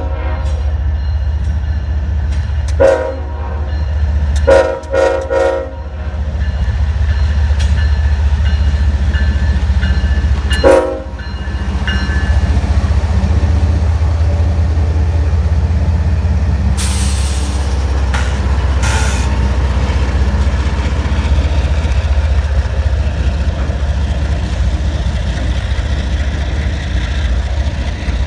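A CSX diesel freight locomotive gives a horn salute: four short horn blasts in the first eleven seconds, two of them close together, over the steady low rumble of its engine. The locomotive then rolls close by with its freight cars, engine drone and wheel noise, with two brief hissing noises near the end.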